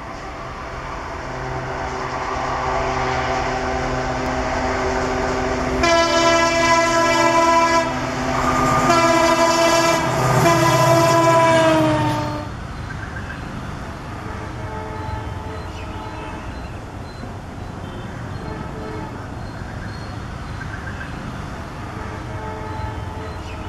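ALCO WDG-3A diesel locomotive's turbocharged engine growing louder as it approaches, then three long blasts of its horn, the last one dropping in pitch as the locomotive goes by. After about twelve seconds the sound falls to a lower, steady rumble.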